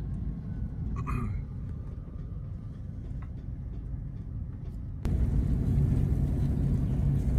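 Road noise from inside a four-wheel-drive truck: a steady low rumble of engine and tyres that gets suddenly louder about five seconds in.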